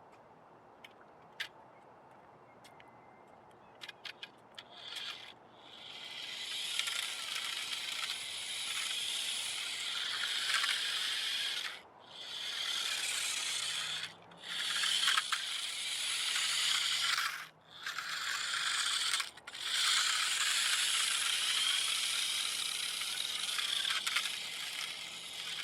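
Vintage 1980s Taiyo RC Chevy truck running in bursts, its small electric motor and gears rattling, with a few brief stops where the throttle is let off. A few light clicks come before it starts.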